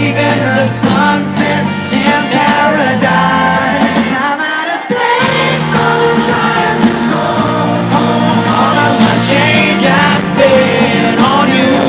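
Live pop-rock band playing with a lead singer's vocals, heard at a concert. The bass drops out briefly about four to five seconds in, then the full band comes back.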